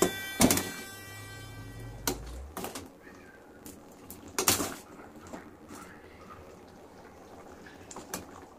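Flat metal spatula stirring a thick curry in a metal kadai, knocking and scraping against the pan with several sharp clinks, the loudest about four and a half seconds in. The tail of background music fades out during the first couple of seconds.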